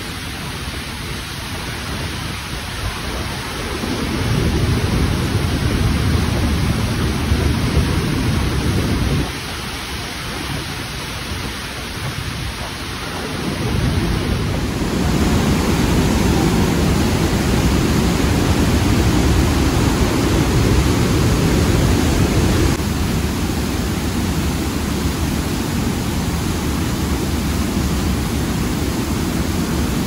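Waterfall rushing through the rock inside a mountain: a steady, heavy roar of falling water that grows louder a few seconds in, drops back briefly, then swells again and holds.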